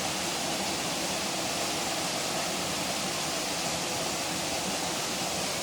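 Waterfall: falling water rushing steadily, an even, unbroken noise.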